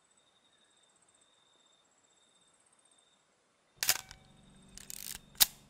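Film camera shutter firing with a sharp click, then the film advance being wound with a short rattle, and a second sharp click.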